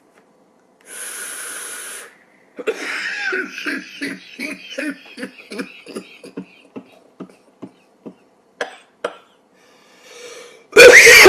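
An elderly man's coughing fit from vaping. A short hiss comes about a second in, then a string of quick coughs, about three a second, growing weaker, and a loud outburst near the end.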